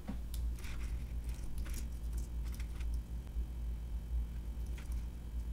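Computer keyboard keys tapping irregularly as text is typed, over a low steady hum.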